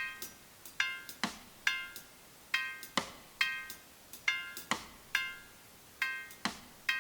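Sparse rhythmic music: short, ringing, pitched struck or plucked notes and sharp clicks repeating in a steady pattern, a few notes a second.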